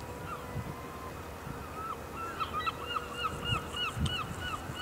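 Waterbirds calling across open water: a few scattered short calls, then a rapid run of them from about two seconds in.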